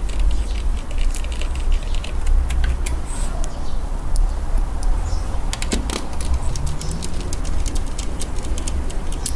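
Light clicks and taps of hands handling parts inside an opened laptop's underside, more frequent in the second half, over a steady low rumble.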